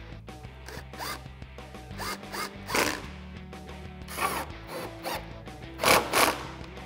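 Snap-on cordless power tool driving the headlight's mounting bolts through a socket and extension, running in several short bursts, the loudest near the end, over background music.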